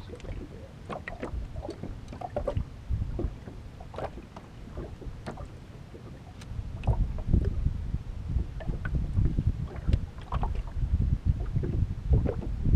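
Wind rumbling on the microphone with small waves knocking and slapping against the fishing boat's hull; the wind rumble grows louder about seven seconds in.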